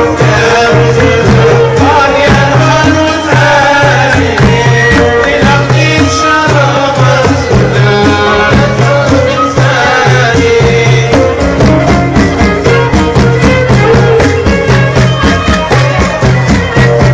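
Traditional folk music from the Touat region of Algeria, played by an ensemble of oud and frame drums. The drums keep a steady beat under a wavering melody, and the percussion grows busier in the second half.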